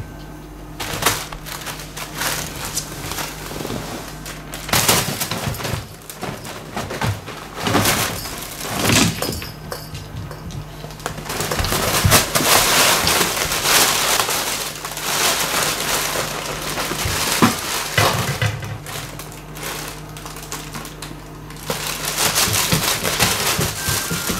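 Cat scrabbling at crinkly fabric play things, a pop-up play tunnel and a folded eco bag, making rustling and crackling in uneven bursts that are busiest in the middle and again near the end.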